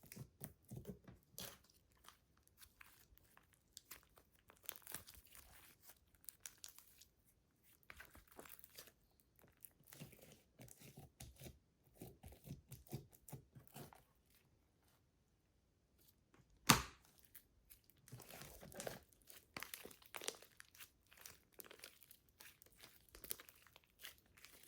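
Slime being squeezed and stretched by hand, making quiet sticky crackles and small popping clicks. About two-thirds of the way through there is a short pause, then one sharper pop.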